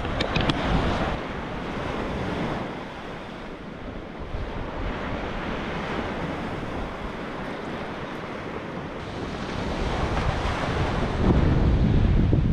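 Sea waves washing onto the beach, with wind buffeting the microphone; the low wind rumble grows louder about eleven seconds in.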